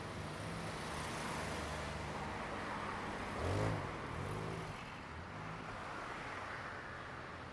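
Diesel train running past, its engine humming steadily under a broad rushing noise, with a brief louder swell about three and a half seconds in.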